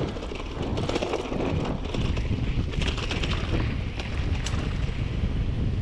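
Wind buffeting the microphone over the rumble of mountain bike tyres rolling on a sandy dirt trail, with scattered clicks and rattles from the bike and gravel.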